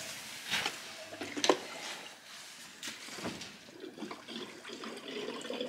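Gasoline pouring from a Husqvarna Combi can's no-spill nozzle into a chainsaw's fuel tank, with a few light knocks at first. It gurgles, thicker near the end as the tank fills up; the gurgling is the sign that the tank is getting full.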